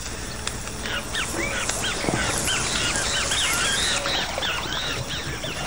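A flock of small birds chirping in quick, overlapping calls, over a steady faint hiss.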